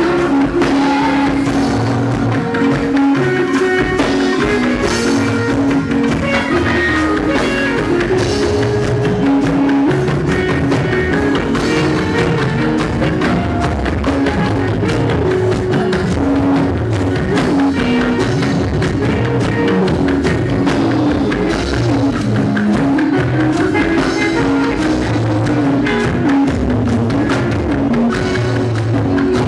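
Band music with drum kit and guitar, loud and even, with a steady drum beat under a shifting melody.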